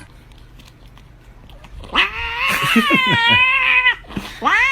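A cat yowling: a long, wavering, drawn-out call starts about two seconds in, followed near the end by a shorter meow that rises and falls.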